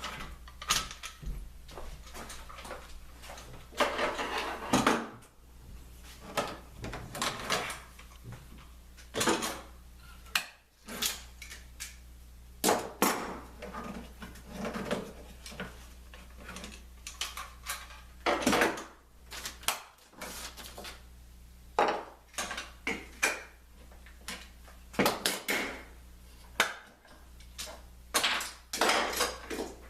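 Irregular knocks, clacks and short scrapes of wooden blocks and clamps being handled and set down on a workbench during a glue-up, over a steady low hum.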